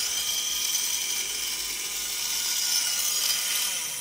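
Small electric drill running steadily, drilling a ruby ball with a 3 mm bit: a steady high-pitched whine and hiss. The drilling solution has run out, so the drill is about to be stopped.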